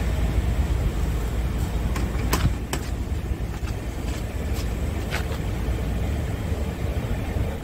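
Scania truck cab door being unlatched and swung open: a few sharp clicks and a clunk from the latch and hinges, the loudest about two and a half seconds in, over a steady low rumble.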